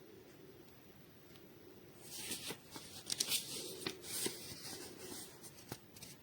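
Rustling and crinkling handling noise with several sharp clicks, starting about two seconds in and dying away near the end.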